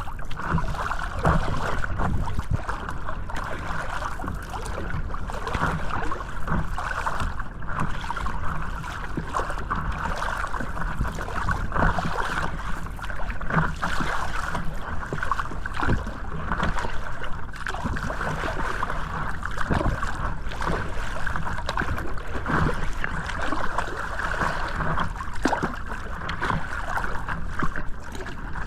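Water noise at sea with many scattered short clicks and knocks.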